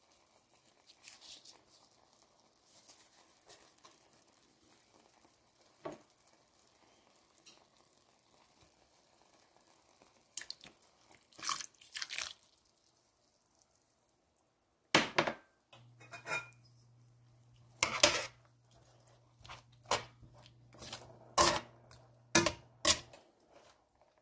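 Metal tongs clinking and scraping against a stainless steel pan as chicken wings are turned in simmering adobo sauce, with loud sharp clinks through the second half. Before that, a quieter stretch of faint simmering and a liquid pour about halfway in. A low steady hum runs under the clinks for several seconds.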